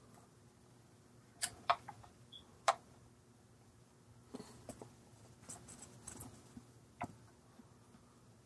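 Quiet handling sounds of two vape box mods, an Eleaf iStick TC200W and a Reuleaux RX200, being turned over in the hands: a few sharp clicks and taps of the casings, with soft rustling between them.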